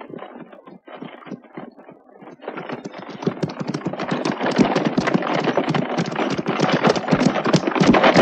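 Horse-drawn carriage on the move: hooves clip-clopping in a dense clatter. It is faint at first and grows much louder from about two and a half seconds in.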